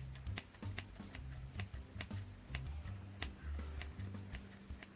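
Scissors making small, crisp snips in foam, about two a second, with quiet background music underneath.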